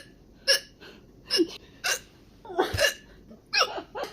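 A young woman hiccuping over and over, about six short, sharp hiccups at roughly one every half second to a second, each a brief catch of the voice.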